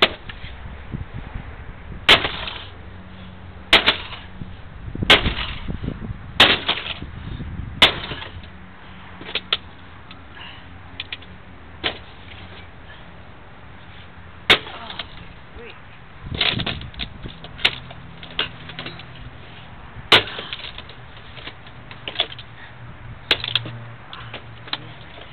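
Repeated hard blows of a long-handled tool striking an HP Pavilion desktop computer's case: about a dozen sharp cracks and bangs at irregular intervals, one to three seconds apart, some with a short ringing after.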